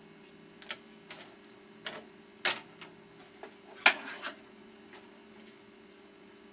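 Workshop handling noises: about six sharp clicks and knocks, the two loudest about two and a half and four seconds in, over a steady low hum.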